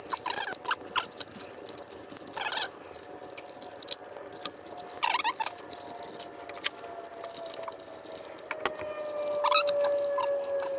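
Rubber edge trim being pressed by hand around a plastic motorcycle speaker lid: short, scattered bursts of squeaky rubbing and plastic clicks. Behind it, a steady tone slides slowly lower and grows louder over the last few seconds.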